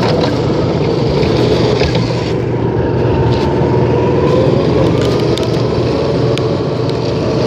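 Steady, loud running noise of a motor vehicle with a low hum, and a faint tone that slowly rises in pitch partway through.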